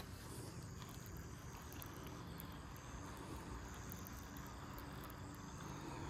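Faint outdoor ambience: a steady chirring of insects over a low rumble. A single sharp click at the very start.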